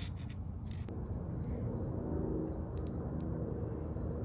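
Steady low rumble of a distant engine, with a faint steady hum.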